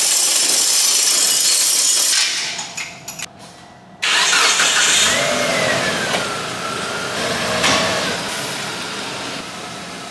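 A steel roller shutter door rattling steadily as it is chained open by hand. Then, a few seconds later, a Mitsubishi Triton ute's engine starts suddenly and runs as the ute moves off, its sound gliding in pitch and slowly fading.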